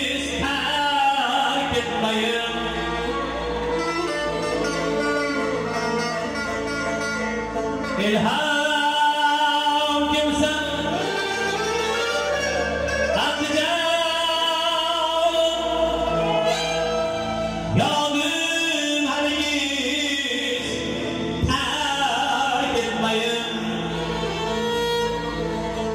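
A man singing a folk song live into a microphone, in long held, bending phrases, accompanied by a small ensemble of plucked long-necked lutes, a bowed fiddle and a frame drum.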